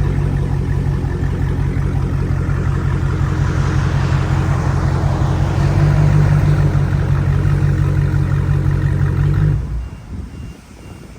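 Mopar car engine on its stock exhaust idling steadily at an even pitch, then shut off about ten seconds in.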